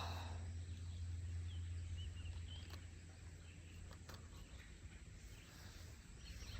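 Faint outdoor background noise with a low steady hum that fades out about two seconds in, a few faint high chirps and a couple of soft clicks.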